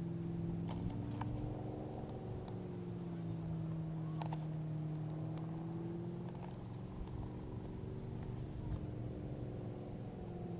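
Small boat's outboard motor running steadily under way, its pitch drifting slightly up and down.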